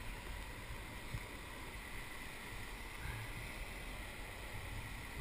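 Steady rush of river water from nearby whitewater rapids, with soft splashes of a kayak paddle dipping into the water.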